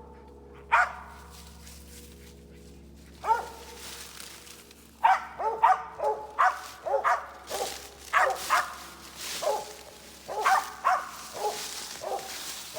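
Squirrel dog barking treed: a couple of single barks, then a rapid run of barks from about five seconds in. It is baying up a den tree, a sign that the squirrel has holed up inside.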